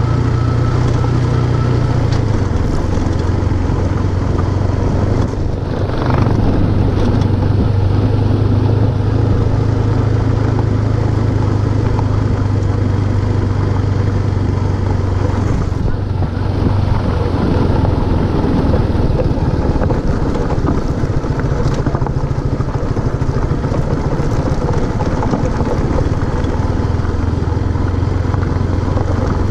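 Motorcycle engine running under way, its note dropping a little about two seconds in and rising for several seconds past the twenty-second mark before settling again.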